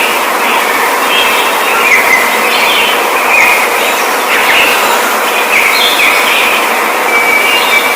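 A flock of birds chirping in many short, overlapping calls over a steady hiss.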